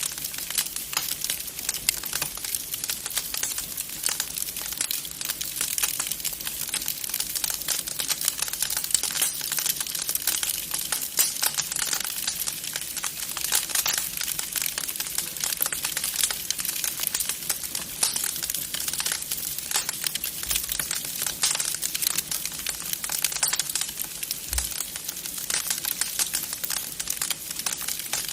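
Wood fire crackling in a fireplace: a dense, steady stream of small pops and crackles.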